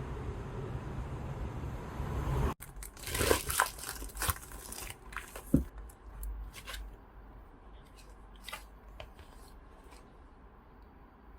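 A steady rumbling noise cuts off abruptly about two and a half seconds in. A run of scattered crinkling, tearing and clicking handling sounds follows and thins out toward the end.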